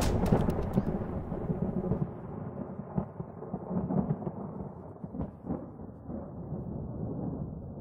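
A deep, thunder-like rumble dying away over the first couple of seconds, leaving a low rumble with a few faint knocks.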